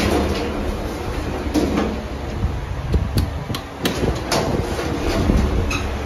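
Mitsubishi lift from 1985 with its sliding doors working: a knock at the start, then several sharp clicks and clunks of the door gear over a steady low machine hum.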